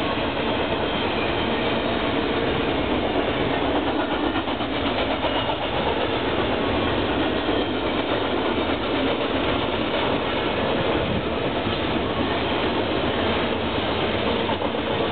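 Double-stack container train's freight cars rolling past at speed: a steady, continuous noise of steel wheels running on the rails.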